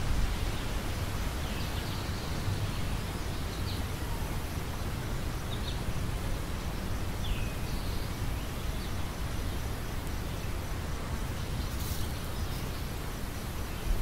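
Steady outdoor background noise with a low rumble, with a few short, faint bird chirps scattered through it and one sharp click near the end.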